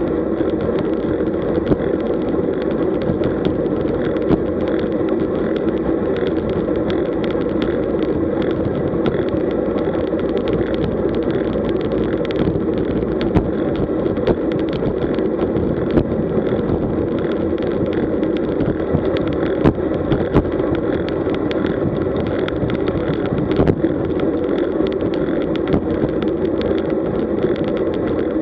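Road bike rolling fast on asphalt at about 38 km/h, heard from a camera mounted on the bike: a steady rush of tyre and wind noise with small clicks and knocks from bumps in the road.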